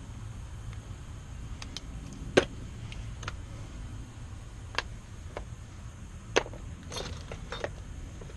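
Small metal clicks and clinks of Kwikset lock cylinder parts being handled during a rekey: a sharp click about two seconds in, single clicks later on, and a quick run of small clicks near the end, over a steady low hum.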